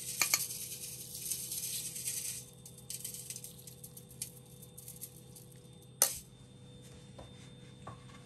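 Metal sieve shaken and tapped over cakes, dusting them with powdered sugar: a fine rattling hiss with a few sharp taps for the first two seconds or so, then sparse light ticks and one sharp click about six seconds in.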